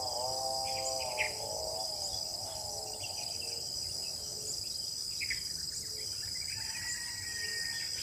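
Steady, high-pitched chorus of insects, like cicadas or crickets, with bird calls over it: a multi-tone call sliding down and fading over the first couple of seconds, then scattered short chirps and a few soft low notes.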